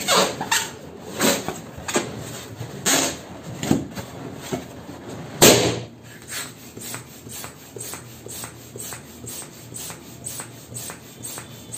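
A large latex balloon rubbed and squeezed by hands in loud irregular strokes, then a single sharp bang about five and a half seconds in as it bursts. After that a hand balloon pump inflates a balloon in short even strokes, about two a second.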